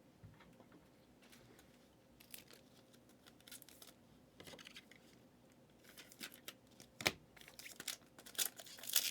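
Trading cards and their pack packaging being handled: faint crinkling and tearing of a wrapper with light clicks, getting busier near the end, with one sharper tap about seven seconds in.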